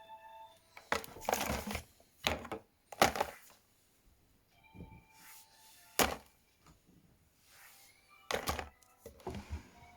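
A series of irregular thuds and knocks, about six of them spread across several seconds, the sharpest about three and six seconds in.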